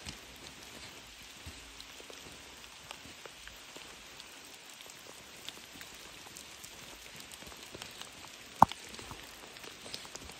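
Rain falling steadily, an even hiss dotted with small drop ticks, and one sharp tap near the end that is the loudest sound.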